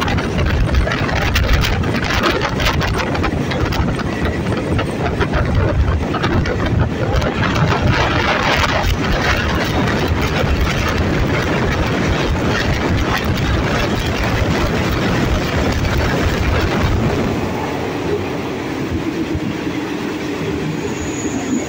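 Alsthom diesel-electric locomotive No. 4135 running, heard from the coach coupled right behind it, together with the steady rumble and clatter of the train rolling along the track. It gets a little quieter for the last few seconds.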